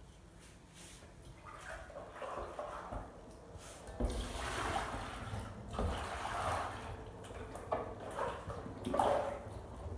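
Tap water running and splashing into a plastic bowl in a kitchen sink, in uneven spells, with a few light knocks of the bowl.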